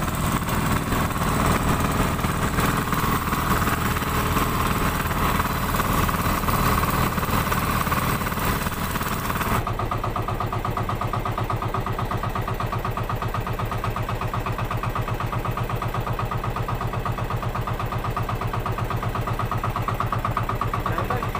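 Outrigger fishing boat's engine running steadily. About halfway through the sound changes abruptly, with much less hiss and a clear, even, fast pulsing of the engine.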